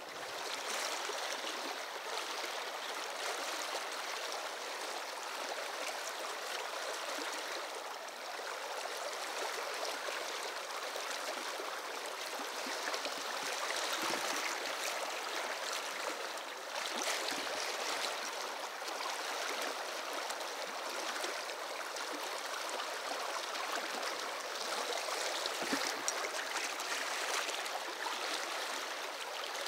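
Shallow river running over a rocky bed: a steady rush of flowing water.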